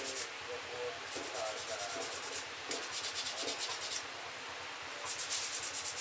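A small pewter lace-keeper piece being rubbed by hand with an abrasive: fast, scratchy strokes in runs of a second or so, with short pauses between, over a steady low hum.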